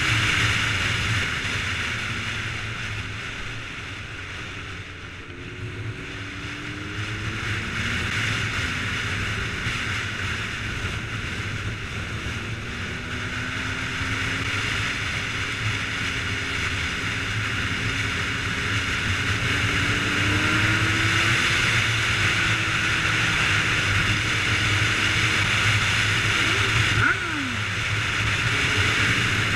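Sport motorcycle riding at road speed, heavy wind rush on the camera's microphone over an engine note that rises and falls. Near the end a brief falling whine.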